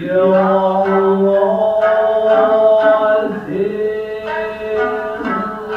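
Traditional Japanese dance music: a sung, chant-like vocal line holding long notes over sharply plucked string accompaniment, in the style of nagauta singing with shamisen.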